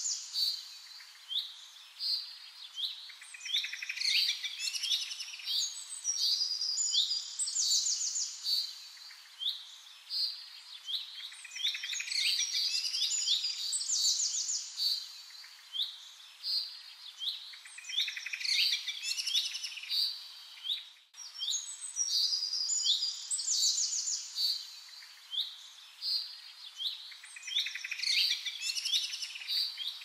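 Songbirds chirping and calling in quick, overlapping high phrases and trills, with a brief break about two-thirds of the way through.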